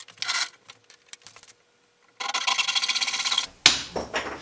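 Japanese-style Shark fine-cut pull saw cutting through the end of a wooden fence board in quick short strokes for just over a second, ending in a sharp knock. A brief rattle and a few light clicks come first, as the saw is taken down from the tool wall.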